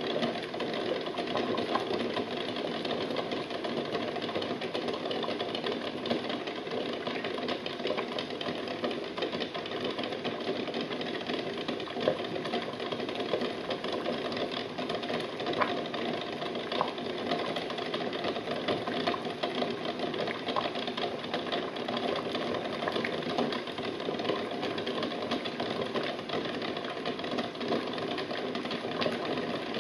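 Water at a rolling boil bubbling in a stainless steel pot, with the eggs jostling and rattling against the pan and each other in a steady clatter of small knocks.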